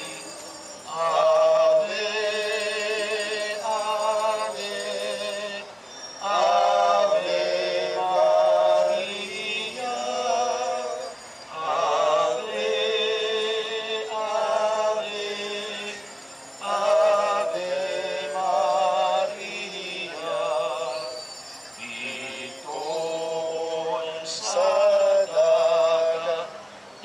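A small group of people singing a slow hymn, held notes with a wavering vibrato, in phrases separated by short pauses about every five seconds.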